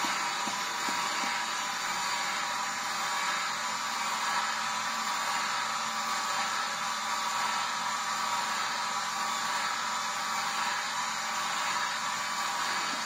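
Vertical slow juicer's motor running steadily as its auger presses pineapple, a continuous even whirring noise with a few constant pitched tones.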